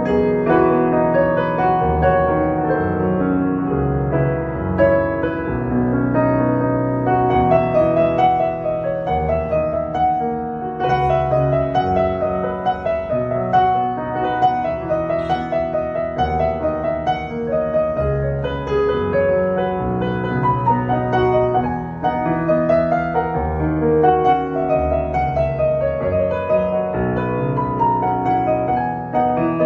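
Roland HP-207 digital piano being played: a melody of quick successive notes over sustained bass notes, with no break.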